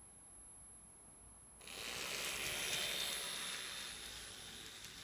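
Model train, a 4-6-2 Pacific locomotive with its three coaches, rolling past close by: a rattling, ratchet-like clatter of small wheels on the track that starts suddenly about a second and a half in and eases off toward the end.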